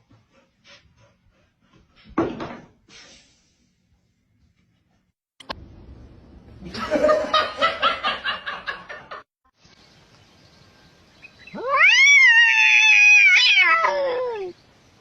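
A cat's long, drawn-out meow near the end, rising and then falling in pitch. Before it comes a rough, pulsing sound lasting a few seconds, and a short sound about two seconds in.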